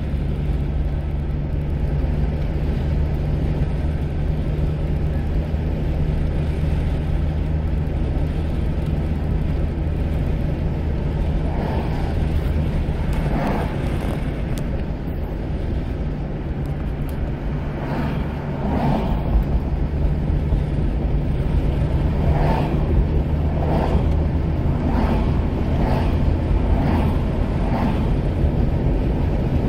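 A car driving, heard from inside the cabin: a steady low engine and road hum with tyre noise. From about the middle on there is a string of short, brief rises in the noise.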